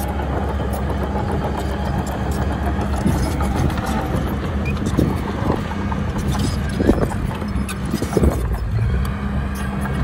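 Komatsu D31PX crawler bulldozer's diesel engine running steadily, with a few sharp clanks and knocks in the second half.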